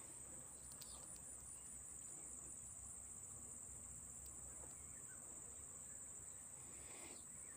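Faint, steady, high-pitched trill of insects.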